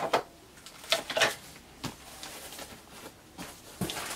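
Hard plastic of a He-Man toy vehicle clicking and knocking as it is handled and set down on a table. A handful of sharp taps: one at the start, two close together about a second in, another just before two seconds, and a last one near the end.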